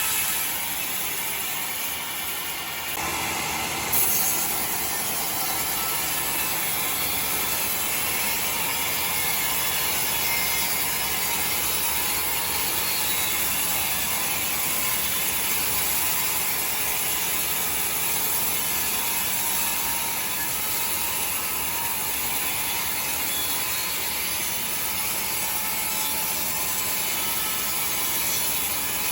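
Sawmill saw machinery running, a steady mechanical noise that steps up suddenly about four seconds in and then holds even.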